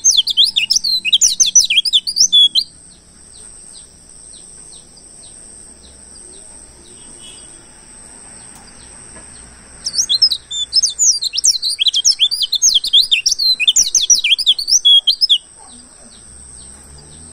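Wild white-eye (pleci) singing in two spells of fast, twittering chirps: the first ends about two and a half seconds in, and the second starts about ten seconds in and runs for some five seconds. A faint steady high tone sits underneath throughout.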